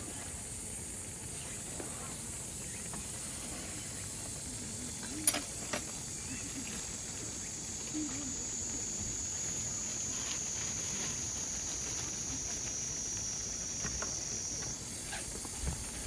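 Steady high-pitched chorus of insects, crickets or similar, shifting pitch slightly near the end, with a sharp click about five seconds in and a few lighter ticks.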